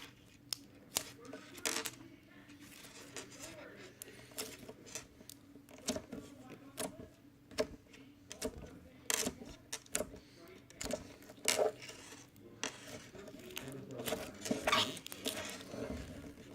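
Fingers poking and squeezing a soft slime-like magic putty, giving irregular sticky clicks and small pops, a few louder near the middle and near the end. A faint voice murmurs in the background.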